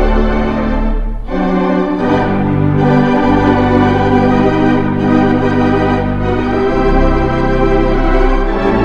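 Wurlitzer theatre pipe organ, a four-manual, 24-rank instrument, playing full sustained chords over a held pedal bass that steps to a new note every second or two.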